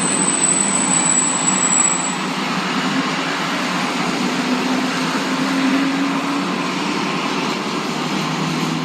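Steady noise of a motor vehicle engine running, with a low hum throughout and a thin high-pitched whine that stops about two seconds in.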